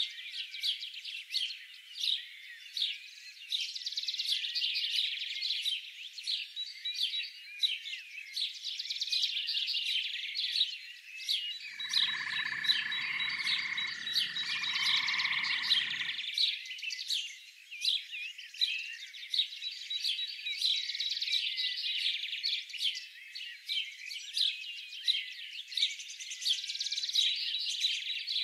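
Dense chorus of small birds, continuous high-pitched chirping and twittering. About midway a lower call sounds twice.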